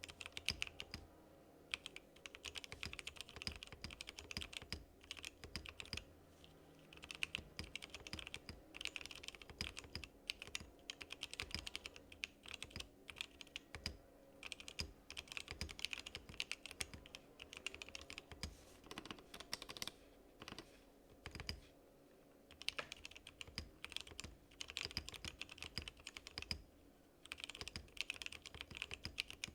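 Typing on a KBDcraft Lilith mechanical keyboard with spring-lubed WS Morandi linear switches and a crazed-ceramic space bar: fast runs of key clacks in bursts of a second or two, with short pauses between them.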